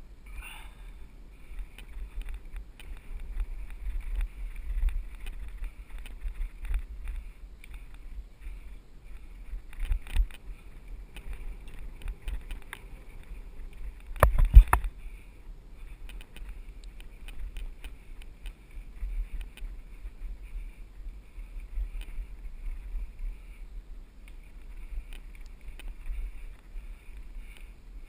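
Mountain bike riding fast down a dirt singletrack, heard from a camera on the bike or rider: a constant low rumble of wind and trail vibration with frequent small rattles over bumps, and one sharp, loud knock over a rough patch about halfway through.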